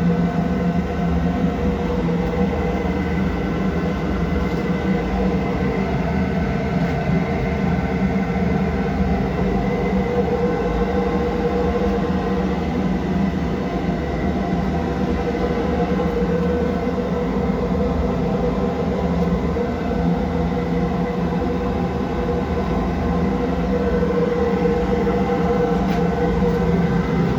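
Steamtherm Comax Plus gas-fired steam boiler running, its burner and fan making a steady, even roar with several constant humming tones.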